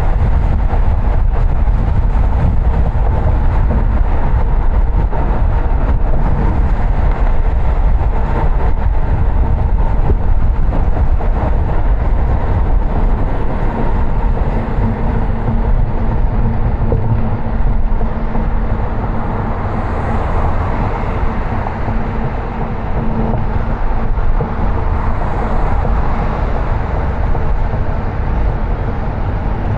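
Car driving on city streets: steady road and engine noise with a low rumble.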